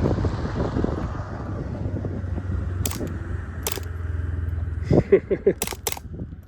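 Suppressed .22 Beretta pistol firing: four sharp shots, single ones about three seconds and three and a half seconds in, then two in quick succession near the end. The shots are quiet and clipped, with low wind rumble under the first half.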